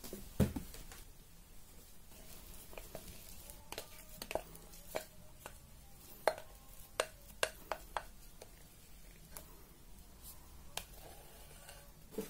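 Scattered light knocks and taps of kitchen handling: a glass mixing bowl being moved and tipped as risen bread dough is turned out onto a floured silicone baking mat. The sharpest knock comes about half a second in, with a run of taps in the middle.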